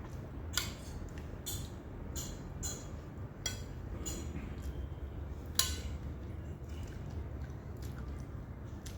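Cutlery clinking against plates and bowls during a meal: scattered sharp clinks, the loudest about five and a half seconds in, over a low steady hum.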